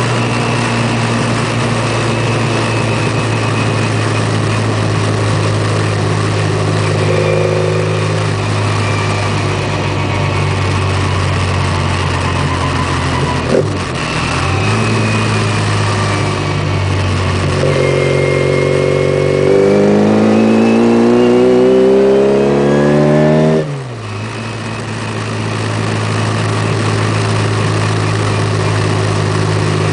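A tuned Mini's four-cylinder engine running hard under racing load, heard from inside the car. It holds steady revs, dips briefly about halfway, then climbs in pitch for several seconds before cutting off sharply and settling back to steady running.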